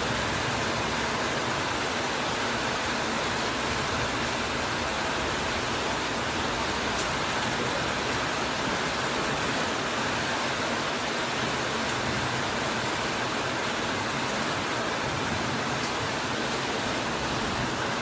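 Heavy rain falling steadily on a corrugated metal roof and broad banana leaves, an even, unbroken hiss.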